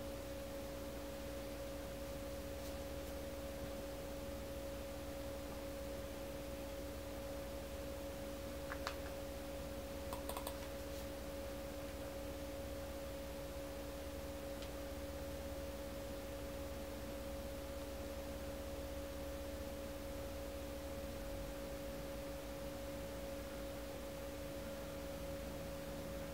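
A steady hum of two held tones, one an octave above the other, unchanged throughout, with a few faint clicks a little before the middle.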